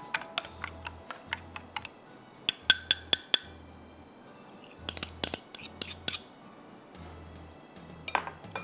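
Metal spoon clinking and scraping against a glass mixing bowl while a thick chicken batter is stirred, a quick run of taps with a few strikes leaving a short glassy ring. Soft background music with a low pulsing beat underneath.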